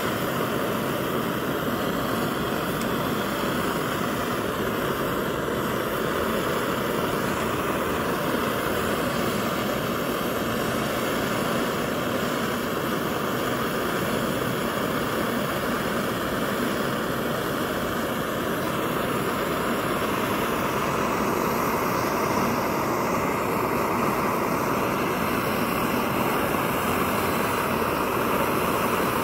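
Kerosene pressure stove burner running: a steady, even rushing noise of burning pressurised fuel, slightly louder in the last third.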